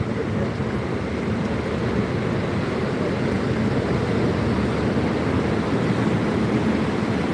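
Steady low rumbling noise of wind buffeting a phone's microphone, over the general hubbub of a busy station forecourt.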